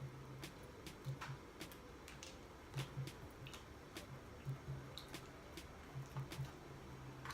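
Faint eating sounds: soft chewing and light clicks of a fork, over the muffled bass beat of music from a neighbour's home.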